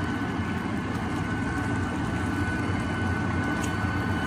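Meat frying in hot lard in a clay cazuela on a gas burner: a steady sizzle, with a faint steady high tone underneath.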